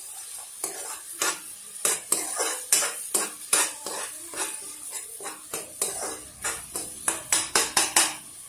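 A spatula scraping and knocking against a metal kadai as a tomato and onion masala is stirred and fried in oil, with a faint sizzle underneath. The scrapes come irregularly and bunch up faster near the end.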